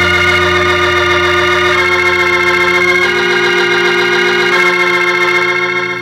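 Organ holding sustained chords in a 1971 pop record. The chord changes about three times, and the sound begins to fade near the end.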